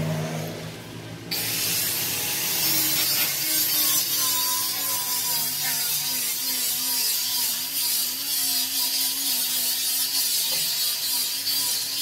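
An electric power tool running steadily with a high hiss. It starts abruptly about a second in, with a faint wavering tone under it.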